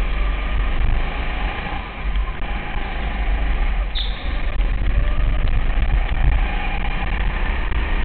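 200cc kart engine running under throttle through the corners, easing off briefly about two and four seconds in. A short high squeak comes about four seconds in.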